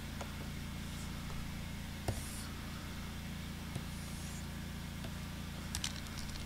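Steady low hum in the background, with brief scratchy strokes of a stylus on a drawing tablet and a quick run of light clicks near the end.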